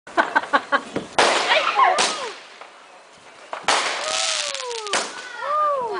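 Fireworks going off: a quick string of about five sharp firecracker cracks in the first second, then several louder bangs with a hissing crackle. Falling whistling tones sound between the bangs.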